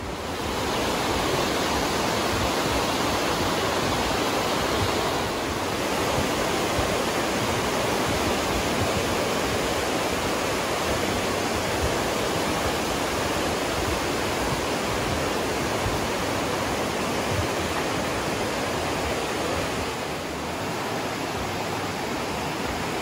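The Aare, a fast icy alpine river, rushing through its narrow rock gorge: a steady, loud noise of churning water that grows a little louder just after the start.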